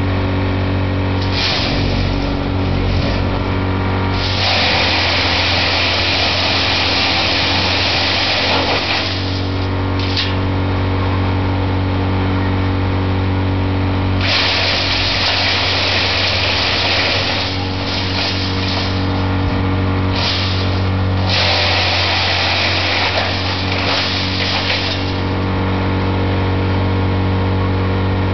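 CH260 wood chipper running with a steady low hum, broken three times by several seconds of loud rushing noise as wood passes through it.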